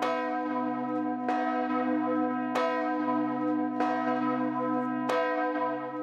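Large church bell swinging and tolling the hour: five strokes about a second and a quarter apart, each ringing on into the next over the bell's steady hum.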